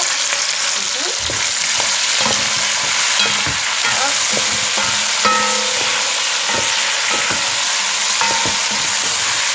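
Smoked turkey wings, onion and tomato sizzling in hot oil in a metal pot, with a steady frying hiss. A wooden spoon stirs them, giving scattered short scrapes and knocks against the pot.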